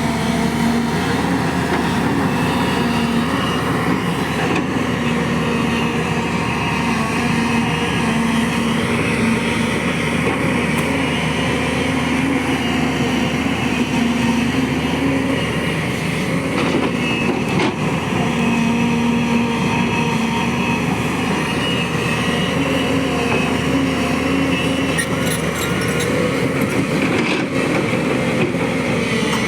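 A JCB excavator's diesel engine running steadily under working load, with a held tone that fades in and out every few seconds.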